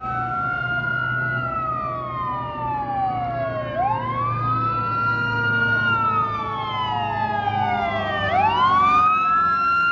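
Fire engine sirens wailing: at least two sirens out of step, each climbing quickly in pitch, holding, then sliding slowly down, with a low engine hum underneath as the apparatus approach.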